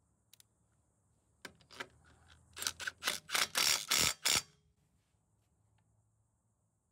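Milwaukee M18 Fuel 2853-20 impact driver, converted to a 1/2-inch anvil, hammering on a wheel lug nut in a series of short trigger bursts, starting about a second and a half in and stopping about a second later than halfway.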